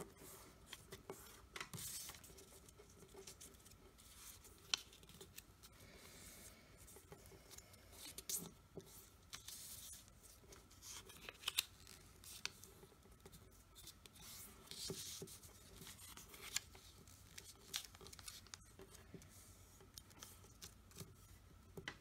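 Faint, intermittent rustling and crisp little ticks of a square of origami paper being folded by hand, its corners brought into the centre and the creases pressed down with the fingers.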